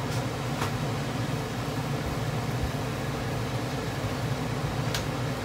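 Chicken pieces coated in caramelised sugar frying over high heat in a large pan: a steady sizzle with a few sharp pops near the start and near the end, over a steady low hum.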